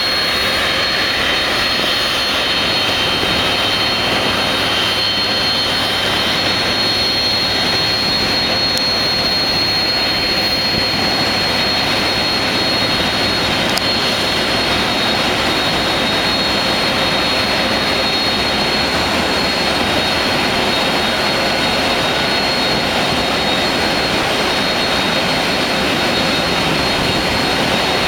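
Jet engines of a Boeing 747 freighter running steadily: a constant, even rush with a high thin turbine whine over it.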